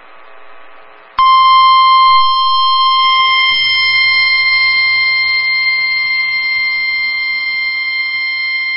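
NOAA Weather Radio 1050 Hz warning alert tone: a loud, steady single tone with a slightly harsh edge that starts about a second in and holds without change. It is the alarm that signals a warning message is about to be read.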